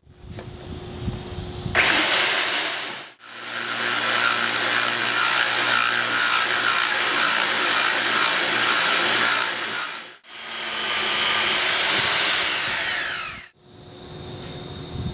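AGP two-speed tile core drill with a 20 mm core bit running in second (high) gear: the motor spins up with a sharply rising whine, then wet core drilling into tile gives a steady high whine with grinding from the bit. Near the end the motor is switched off and its whine falls away.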